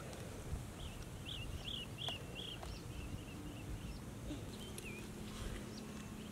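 A bird calling a quick series of about eight short chirps that fade away, then one more call a couple of seconds later, over a steady low rumble.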